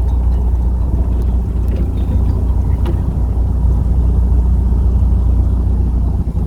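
Narrowboat's diesel engine running steadily under way, a low rumble, with a few faint knocks in the first few seconds.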